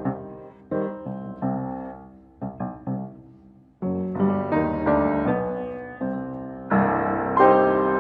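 Piano music: struck chords and notes that ring and fade, growing fuller and louder about halfway through and again near the end.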